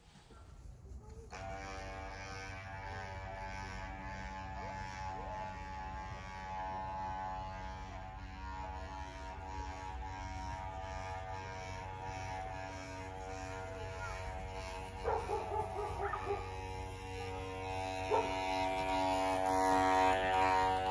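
A steady buzzing hum from a small motor starts about a second in and keeps going. A dog barks a few times near the end.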